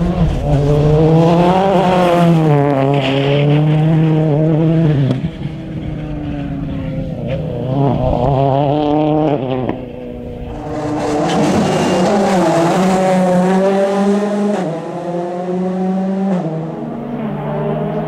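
Rally cars at full effort on a tarmac special stage, their engines revving up and dropping back over and over through gear changes and braking. About ten seconds in, a second car's run takes over with a brighter, harder-revving sound.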